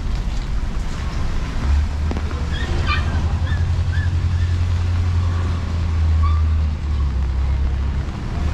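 A motor vehicle's engine running close by, a low pulsing rumble that sets in about two seconds in and drops away near the end, over a steady hiss of rain.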